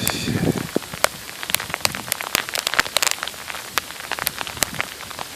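Sleet pellets hitting hard surfaces: a dense, irregular run of sharp ticks over a light hiss.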